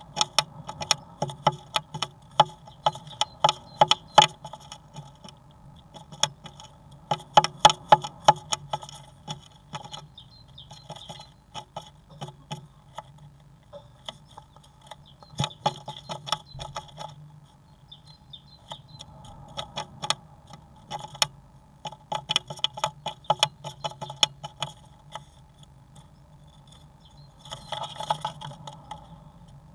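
Great tit shuffling on the bare wooden floor of a nest box: bursts of rapid taps and scratches from its feet and bill, a second or two at a time, several times over. This is the nesting wriggle, the bird pressing and turning on the floor before nest building begins.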